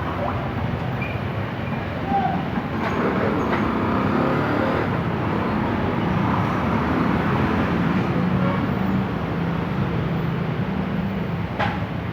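Bajaj CT100 motorcycle's single-cylinder four-stroke engine running steadily after an overhaul.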